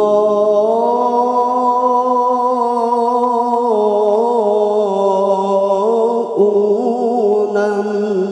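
A male qari's solo voice chanting Quran recitation (qiroah) in one long held, unbroken note with slow melismatic ornaments, stepping down slightly in pitch about a third of the way in and again near the end.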